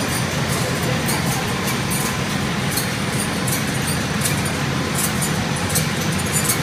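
Aluminium-foil printing machine running: a steady mechanical rumble with frequent light, irregular ticking over it.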